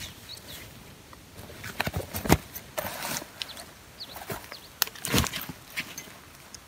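A backpack and camping gear being handled on grass: rustling as a sheepskin is pulled off the pack and the pack is moved, with two sharp knocks about two seconds in and again around five seconds as it is set down.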